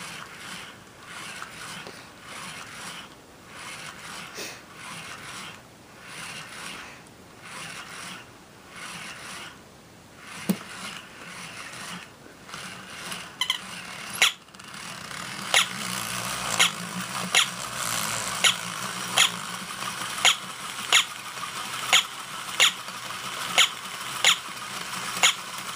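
Battery-operated walking toy dog's motor and gear mechanism running. At first there is a soft pulsing about once a second. From about halfway in comes a louder whir with sharp clicks a little more than once a second as the walking mechanism steps.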